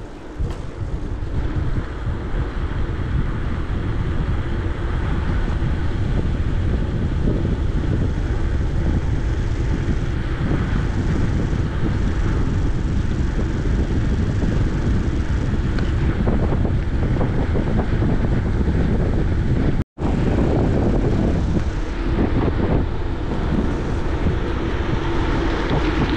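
Wind rushing over the microphone of a camera carried on a moving bicycle, a steady low rumbling roar. It breaks off abruptly about twenty seconds in and resumes at once.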